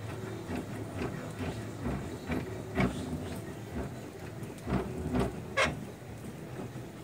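Scattered knocks and clicks from a Makita table saw as its blade is wound down below the table, over a low steady hum. The sharpest knocks come about three seconds in and as a cluster of three near the end.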